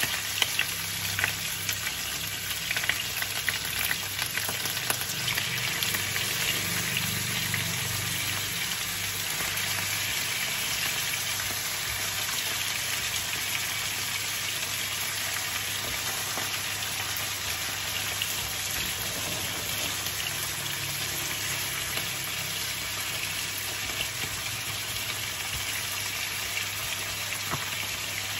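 Pork ribs frying in hot oil in a nonstick pan: a steady, dense sizzle and crackle. A few clicks of chopsticks against the pan come in the first couple of seconds.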